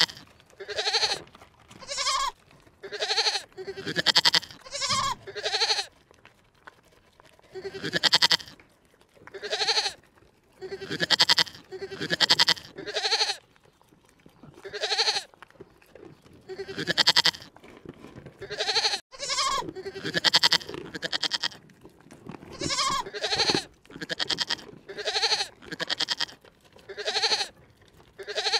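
Bleating livestock, calls repeated about once a second with a few short lulls, each call short and wavering.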